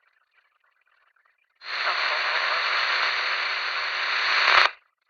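Police radio scanner: about a second and a half in, a channel opens with a burst of static hiss lasting about three seconds, which cuts off abruptly with a squelch click.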